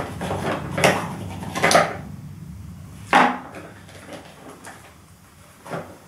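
Hard plastic knocks and scraping as a pleated cartridge filter is pushed and twisted onto the motor head of a Titan TTB350VAC wet & dry vacuum cleaner. Four sharp knocks come in the first three and a half seconds, then quieter handling with one light knock near the end.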